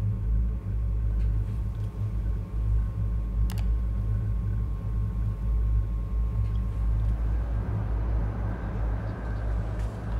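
Steady low rumble with a faint, even electrical hum above it, and a single click about three and a half seconds in. A faint hiss swells in after about seven seconds.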